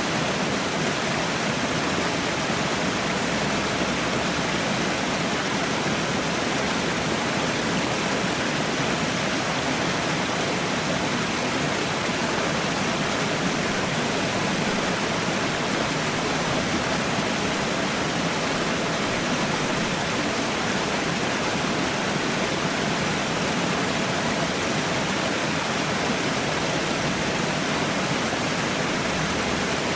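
Falling water, a small waterfall or cascade, rushing steadily without change.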